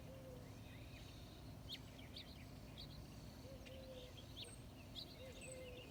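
Faint birdsong: scattered short high chirps from small birds, and a low two-part call (a short rising note, then a held note) repeated about three times.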